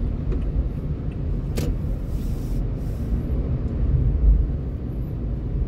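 Car driving slowly, heard from inside the cabin: a steady low rumble of engine and road noise, with one faint click about one and a half seconds in.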